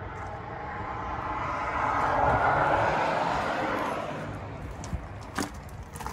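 A rushing noise swells to a peak about halfway through and fades away. Near the end come a few sharp clicks as the truck camper's exterior battery compartment door is opened.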